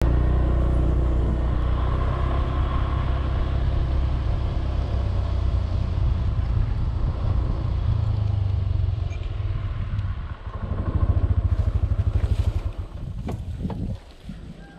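Motor scooter engine running while riding, with a steady low rumble. Around ten seconds in it slows to a pulsing idle, and it cuts off with a few clicks near the end.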